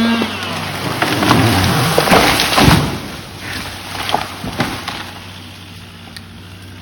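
A chainsaw running at full throttle cuts off at the very start, then a tree cracks and crashes down through branches for a couple of seconds, loudest as it hits the ground, followed by a few scattered snaps of wood settling.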